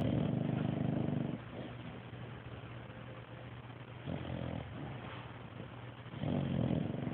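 A sleeping pet snoring: three snores about two and a half seconds apart, the first one the longest.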